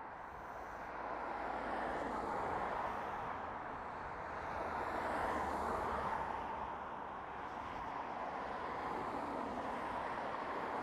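Road traffic passing on a busy dual carriageway: a steady wash of tyre and engine noise that swells twice as vehicles go by, about two and five seconds in.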